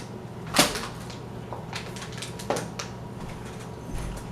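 A sharp knock about half a second in and a softer one about two and a half seconds in, with a few faint clicks, over a low steady hum.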